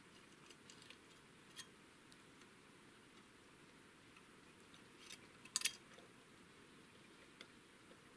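Quiet handling noises: scattered light clicks and taps, with a sharp double knock about five and a half seconds in.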